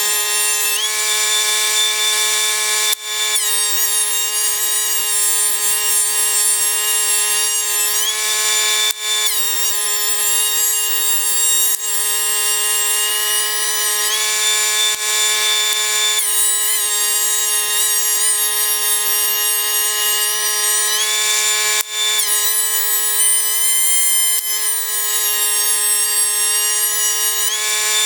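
Dewalt 13-inch benchtop thickness planer running with its steady high motor whine. Pine boards feed through one after another: the cutting noise swells while a board is in the cutter and eases in the short gaps between boards.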